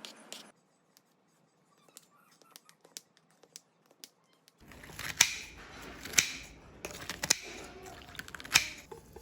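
Kitchen cooking sounds: scattered sharp clicks and knocks of utensils and cookware, sparse at first, then over a steady low noise from about halfway through.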